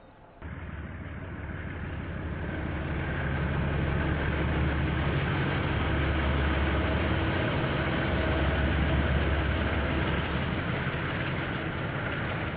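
KiwiRail diesel-electric locomotive hauling a container freight train past, its engine a low steady drone over the rumble of wheels on the rails. The sound starts abruptly about half a second in and builds over the next few seconds.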